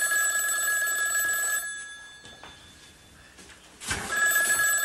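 Telephone ringing twice: the first ring stops about a second and a half in, and the next begins about four seconds in, a steady high-pitched trill each time.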